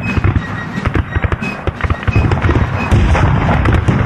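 Battle sound effects: dense, crackling gunfire, many shots overlapping without pause, with music underneath.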